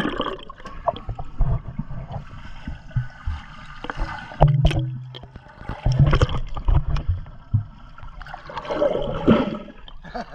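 Swimming pool water heard underwater through a GoPro's waterproof case: muffled bubbling and water movement with many knocks against the housing, and a louder rush near the end as the camera comes back up to the surface.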